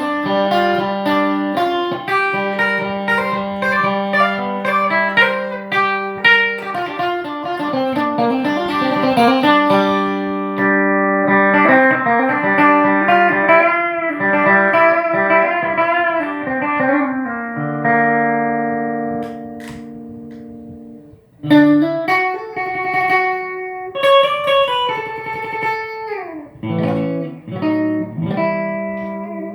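Ibanez RG560 electric guitar played solo: quick runs of notes over a repeated low note for the first half, then a chord left ringing and dying away. After a brief pause come more phrases, with notes sliding down in pitch.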